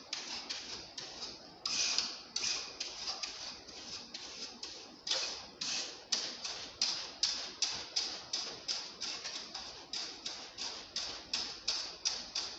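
Stiff coil brush scrubbing the fins of a split air conditioner's indoor coil in quick repeated strokes, about three a second, each a short scratchy rasp.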